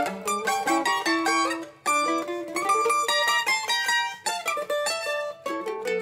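Two Colombian bandolas playing a bambuco: quick runs of bright plucked notes in two voices, with a brief break about two seconds in.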